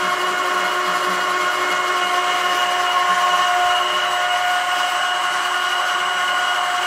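Homemade screw oil press driven by an electric motor through a reduction gearbox, pressing sunflower seeds: a steady machine whine with several held tones that does not change. It is running smoothly, with no vibration.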